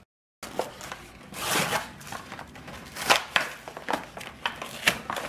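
Packaging being handled and torn open by hand: irregular rustles, crinkles and small clicks, after a split second of dead silence at the start.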